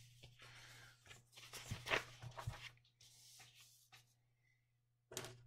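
Paper worksheets rustling and sliding on a wooden desk as they are handled. The scrapes are soft and come mostly about two seconds in, over a low steady hum.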